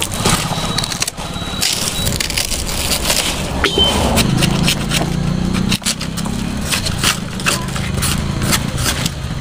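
Fresh banana leaves being torn and stripped from their midribs by hand: a run of crackling, ripping and rustling, with water splashing off a leaf at the start.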